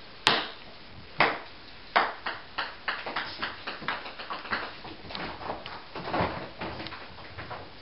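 Ping-pong ball bouncing on a hard floor: three hard bounces about a second apart, then a run of smaller bounces coming quicker and fading, with scattered light taps after.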